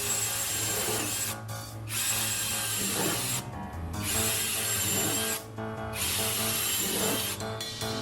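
Electric power tool, such as a drill, working wood with a steady high whine. It runs in stretches of about a second and a half and cuts out briefly four times.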